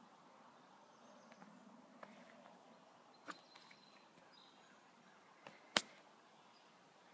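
Quiet lakeside outdoor ambience with a few faint clicks and one sharp click about three-quarters of the way through. A brief, faint, thin high tone sounds a little before the middle.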